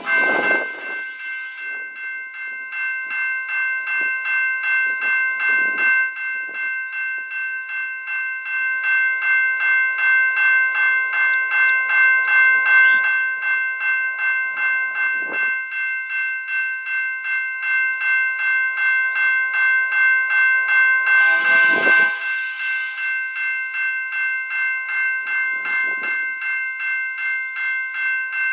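Railroad crossing bell starting up abruptly and ringing steadily in a rapid, even rhythm as the grade-crossing signals activate for an approaching train. A brief lower tone stands out about three-quarters of the way through.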